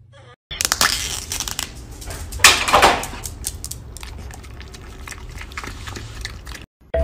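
Crinkling and crackling of a foil lid being peeled off a small plastic yogurt cup, loudest a couple of seconds in, followed by a dog licking the yogurt from the cup; the sound cuts off abruptly near the end.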